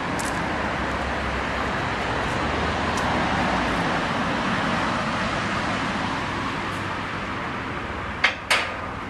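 Diesel engine of the Lartigue Monorail replica locomotive running as it drives away along the single elevated rail, easing slightly as it goes. Two sharp knocks near the end.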